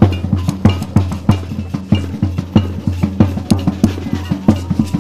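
Street samba-style protest drum band playing a fast, steady rhythm: deep bass drum beats under quick, sharp drum strikes.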